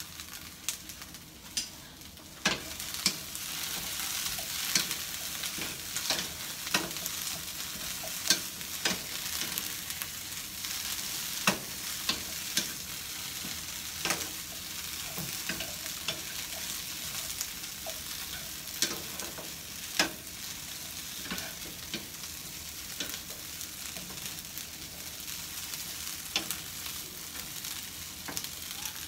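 Mojarra fish frying in hot oil in a pan: a steady sizzle with sharp crackling pops every second or two.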